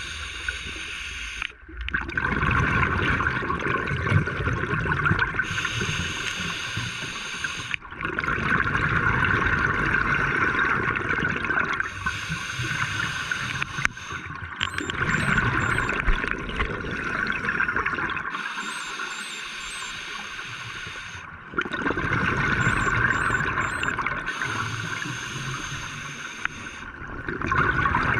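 Scuba breathing heard underwater: bursts of exhaled bubbles from a diver's regulator about every five to six seconds, alternating with quieter stretches of inhalation.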